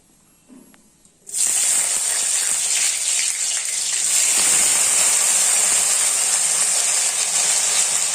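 Steamed potatoes going into hot oil: a loud, steady sizzle that starts suddenly about a second in and keeps on as they fry.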